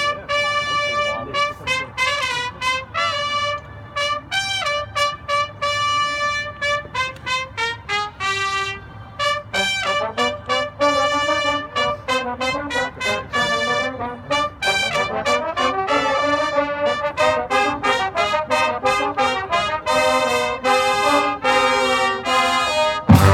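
Marching band brass playing a tune: trumpets lead with short, rhythmic phrases, and lower brass join in under them about halfway through. A loud drum hit lands right at the end.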